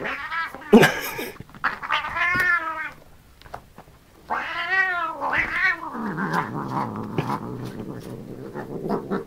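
Domestic cat yowling on catnip: two long, wavering, drawn-out yowls, then a few seconds of rough noise as it rolls with a catnip-filled cushion.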